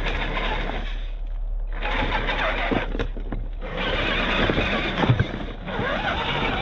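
RC crawler's brushed electric motor and gearbox whining in bursts as it is driven over gravel and a log, cutting out twice briefly, with a few sharp knocks about five seconds in.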